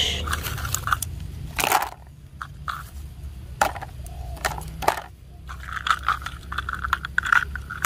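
Rustling and crunching in dry leaves and grass, with a few sharp clicks and knocks as hard plastic toy train track pieces are picked up and dropped into a plastic basket.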